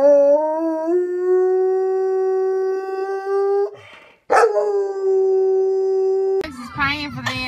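Dog howling twice with its head raised. The first is a long, steady howl that rises a little at the start. After a short break, the second starts high, drops and holds a steady note. Near the end it cuts to voices.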